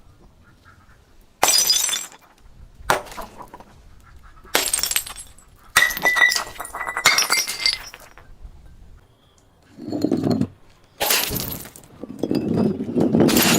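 Glass bottles being smashed: several sharp breaks with the ring and tinkle of shards. Near the end comes a longer crunching of broken glass.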